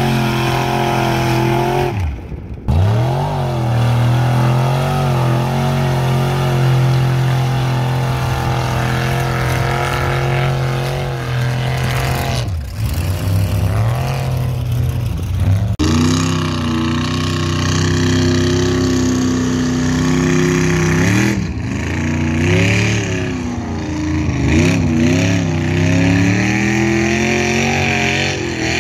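Engine of a lifted Chevy pickup held at high revs as it churns through mud. Its pitch drops and climbs again several times as the truck bogs down and the throttle comes back on.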